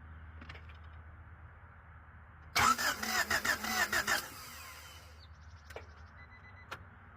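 1992 Honda Prelude's engine cranked on the starter for about a second and a half, a loud pulsing churn that stops without the engine catching: the car's no-start condition.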